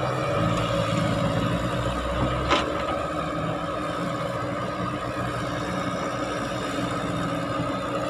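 Caterpillar crawler excavator's diesel engine running steadily under working load while it swings and digs, with a single sharp knock about two and a half seconds in.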